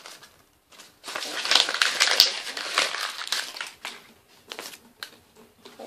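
Toy packaging being crumpled and pulled apart by hand: a dense crackling rustle for about three seconds starting about a second in, then a few short scattered rustles.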